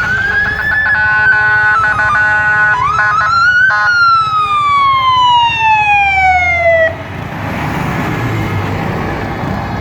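Fire engine sirens. A wail rises and holds among steady tones, rises again, then falls in one long glide that stops abruptly about seven seconds in, leaving engine and road noise.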